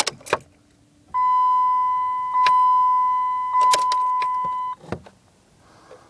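A 2003 Chrysler Voyager's dashboard chime sounds one steady electronic beep for about three and a half seconds while the instrument cluster starts its reset code check. Two sharp clicks come at the start, two more during the beep, and a thump follows shortly after it ends.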